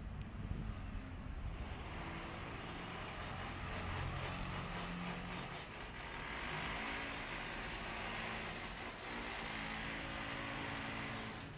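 Steady motor-vehicle engine hum with a continuous rushing noise, the low hum fading and returning a few times.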